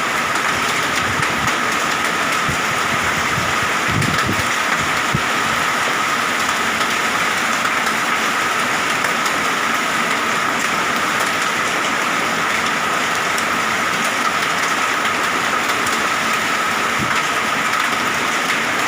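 Heavy rain and hail pelting down in a violent storm: a loud, steady, dense hiss, with a few low thuds about four seconds in.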